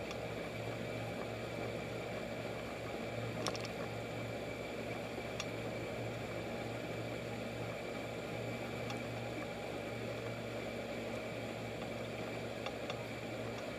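1971 Evinrude 6 HP two-stroke outboard motor running steadily at cruising speed, pushing a jon boat along, a constant drone.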